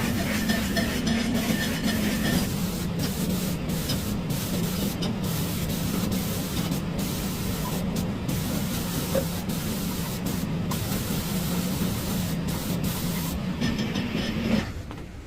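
Steady factory machine noise: a loud hiss over a low hum, with many brief dips in the hiss. It drops away near the end.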